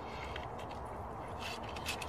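Faint handling clicks of a flintlock musket being loaded, then a wooden ramrod scraping in a few quick strokes near the end.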